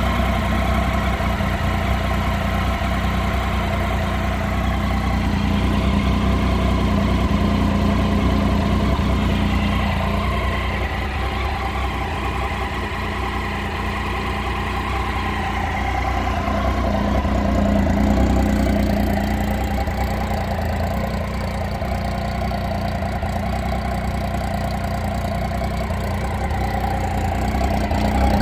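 2012 Triumph Tiger 800's 799 cc inline three-cylinder engine idling steadily.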